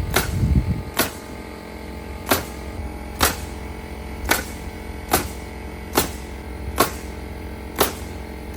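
Nails being driven into roof sheathing: sharp strikes about once a second over a steady motor hum.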